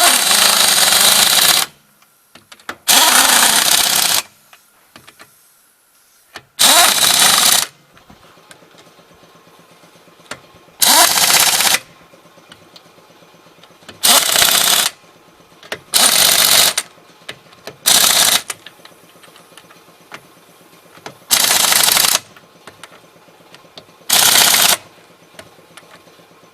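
Pneumatic impact wrench running lug nuts onto a wheel in about nine short bursts, each a second or so long with pauses between, as the nuts are tightened one after another.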